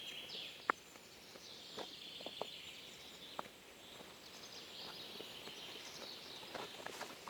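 Faint forest ambience: a steady high chorus of small birds chirping and trilling, with a few scattered sharp clicks.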